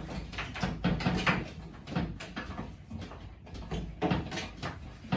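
Irregular knocks, clatters and scrapes of the wooden panels of a dismantled bed being handled and moved.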